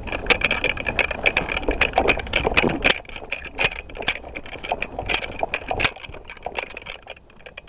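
Footsteps pushing through brush: irregular crackling and snapping of twigs and leaves, busiest over the first three seconds and sparser after.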